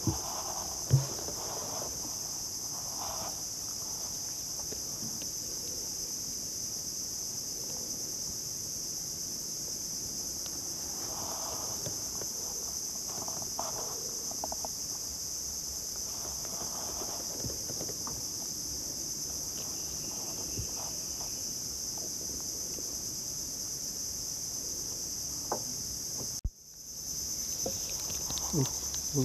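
Steady high-pitched chorus of insects shrilling, with scattered faint knocks and clicks and one sharp knock about a second in. The sound drops out briefly near the end and comes back.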